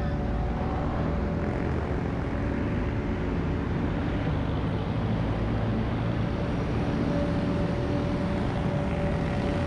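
Steady road-traffic noise heard from a moving bicycle: the engine drone of passing jeepneys and tricycles mixed with a constant low rush of air.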